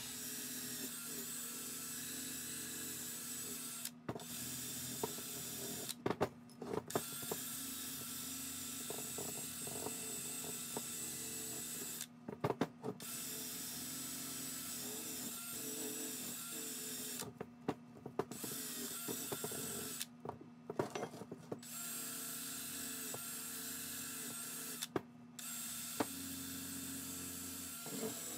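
Cordless drill spinning a wire wheel against a rusty steel hitch ball mount, scouring rust off the metal. The drill stops and restarts several times, with scrapes and clicks as the wheel and the hitch are shifted.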